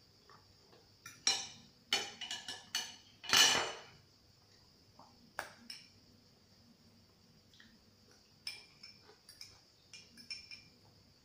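Metal fork clinking and scraping against a small glass bowl and a ceramic plate in scattered short clicks, busiest in the first few seconds with the loudest about three and a half seconds in, then sparser near the end.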